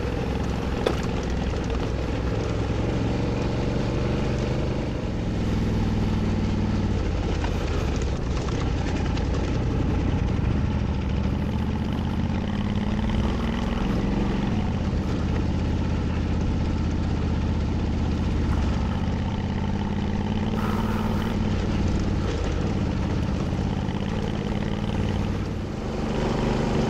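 Honda Africa Twin motorcycle's parallel-twin engine running steadily while riding a dirt road, its note stepping in pitch a few times, over a constant wash of wind and road noise.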